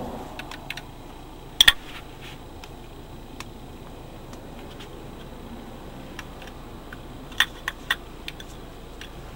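A few sharp clicks and taps over a steady low hiss inside a car: two close together about a second and a half in, three more near the end, and fainter ticks between.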